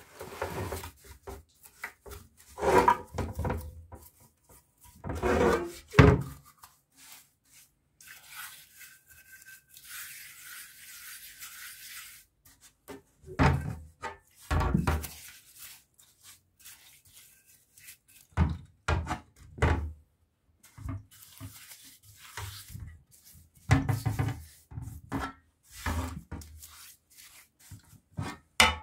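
A bristle brush scrubbing a wet cast-iron electric water pump end housing in a shallow metal tray, in bursts with pauses between them. It comes with clunks and knocks as the casting is turned and set against the tray.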